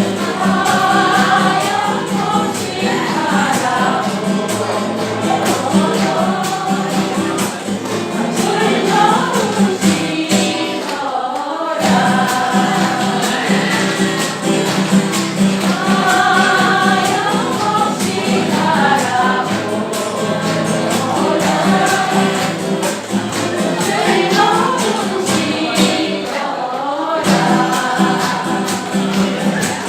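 A group of voices singing a song over steady instrumental accompaniment with a light percussion beat, with a brief break about eleven seconds in and again near the end.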